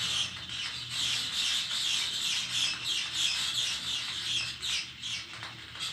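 Many small birds chirping at once in a dense, continuous chatter of quick overlapping calls, easing off near the end.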